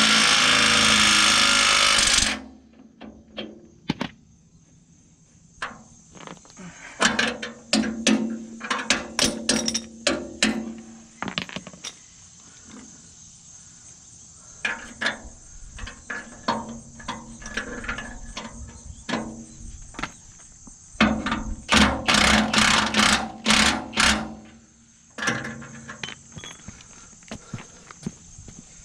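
Cordless impact wrench running down the brake-housing bolts: a run of about two seconds at the start, then a string of short bursts, and another longer run of about three seconds near the three-quarter mark. A steady high insect drone runs underneath.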